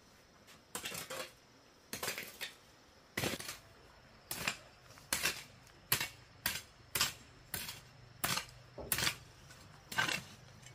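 About a dozen short knocks or clattering strokes, first about a second apart, then quicker, roughly two a second.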